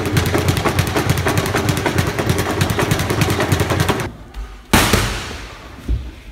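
Leather speed bag being punched in a fast, even rattle. It stops about four seconds in, and a few single hard smacks follow, boxing gloves striking focus mitts, the first the loudest.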